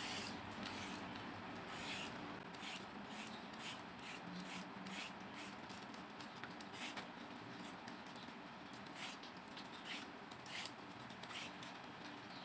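Vegetable peeler scraping the skin off a daikon radish: a faint series of short scrapes, one stroke about every half second to second, as strips of peel come away.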